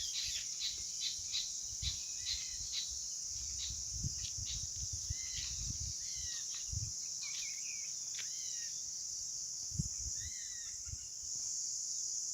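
A steady, shrill chorus of forest insects, like crickets or cicadas, with many short bird chirps calling over it, some in quick repeated clusters. Scattered low thuds sound under it.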